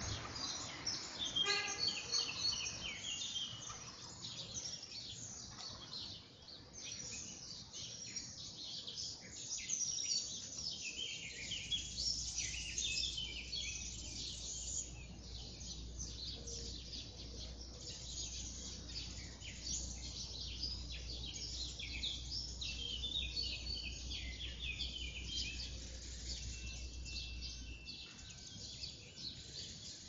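Morning chorus of several songbirds singing and chirping at once, many short high notes and trills overlapping. A low steady hum sits underneath from about a third of the way in until near the end.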